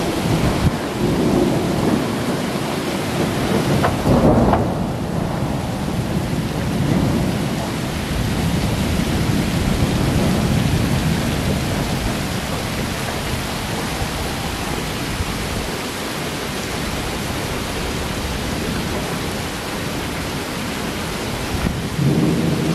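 Heavy rain falling in strong wind: a steady, dense rushing with a low rumble underneath.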